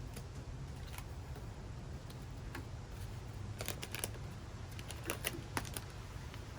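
Packaging being handled: scattered light clicks and crinkles, clustered about halfway through, over a steady low hum.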